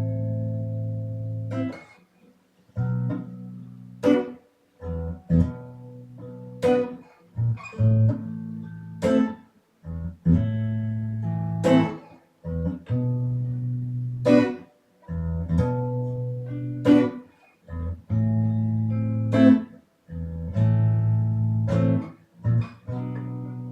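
A 1997 Squier Jagmaster electric guitar being played in a test run after its restoration and setup. Chords ring for a second or two, are choked off into short silences and start again, with sharp accented strums about every two to three seconds.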